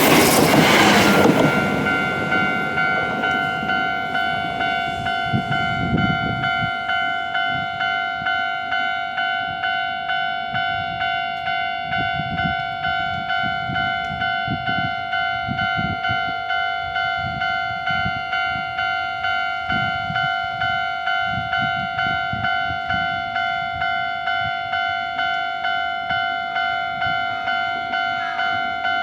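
Japanese level-crossing warning bell ringing in a steady, even rhythm. A passing train's noise fades out over the first second or two.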